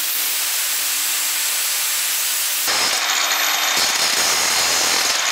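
Angle grinder with a Milner Haufen diamond cutoff disc cutting through a bolt: a steady motor whine under a loud grinding hiss, changing in tone about halfway through. The disc's diamond is worn, so it cuts slower than normal.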